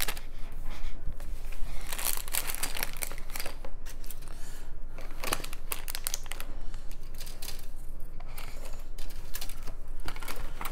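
Packaging crinkling and rustling as the contents of a miniatures box are handled, in irregular bursts with small knocks.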